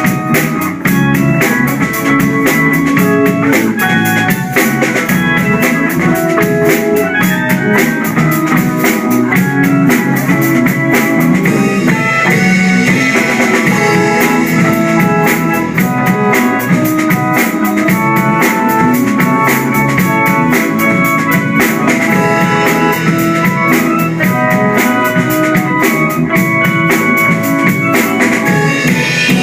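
A band playing an instrumental passage of a pop song: a drum kit keeping a steady beat under guitar and other held melodic notes.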